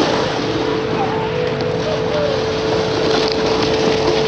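Steady mechanical drone with a constant hum under it, unchanging in level.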